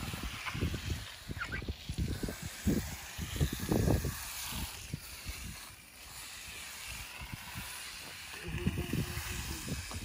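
Low, irregular rumbling buffets on the microphone over a steady hiss, typical of wind or handling noise on a phone filming outdoors. They ease off briefly about six seconds in.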